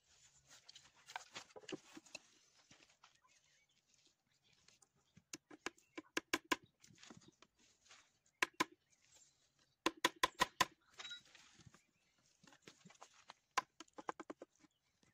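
Hand work on wood: quick runs of sharp taps, several a second, grouped about six, eight and ten seconds in, between stretches of rasping scraping at the start and near eleven seconds.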